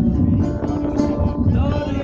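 Music playing, with a steady low rumble underneath.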